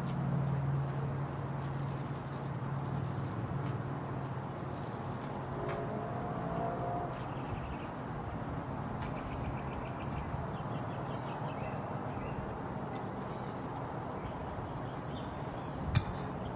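Outdoor ambience of small birds: short high chirps repeat about once a second over a steady low background noise, with a brief trill now and then. A single sharp click comes near the end.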